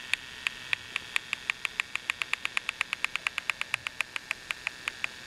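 A run of short, sharp clicks over a steady hiss: a few spaced clicks at first, quickening to about six a second in the middle, then slowing and spreading out again near the end.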